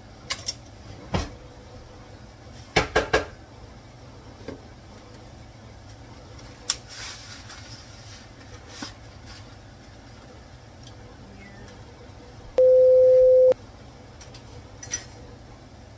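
Wooden spoon knocking against a steel pot while dry spaghetti is stirred and tipped in from its box: scattered sharp knocks and rattles, with three close together about three seconds in. Near the end comes a loud, steady electronic beep lasting about a second.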